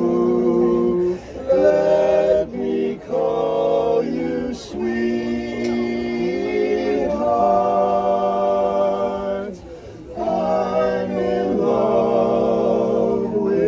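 Male barbershop quartet singing a cappella in close four-part harmony, holding long chords phrase by phrase with short breaths between them.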